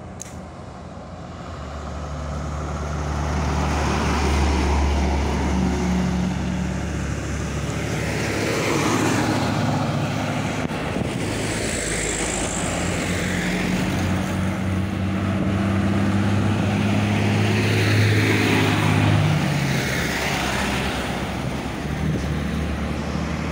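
Heavy trucks driving past close by, one after another: a steady low engine drone with tyre and road noise that swells over the first few seconds and stays loud, its pitch shifting as each truck goes by.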